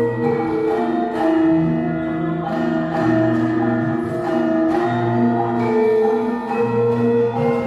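Javanese gamelan playing a slow court-dance piece: bronze metallophones and gongs ring in sustained notes, with a low note sounding every couple of seconds.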